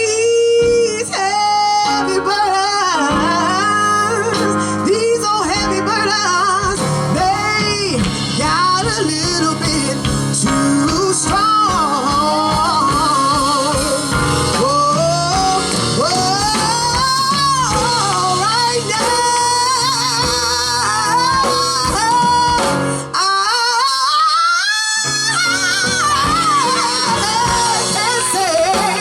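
Live gospel music: voices singing a gospel song with sliding, ornamented melody lines over instrumental backing, the bass dropping out briefly about two-thirds of the way through.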